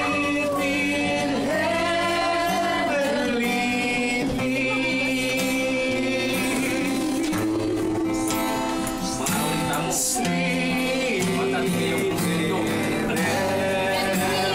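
A man singing a song while strumming an acoustic guitar, the voice holding long notes over steady chords.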